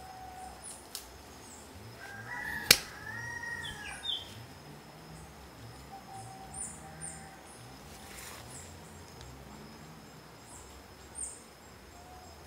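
Outdoor ambience of small birds chirping, with a drawn-out bird call about two seconds in and a faint steady high whine underneath. One sharp, loud click about two and a half seconds in.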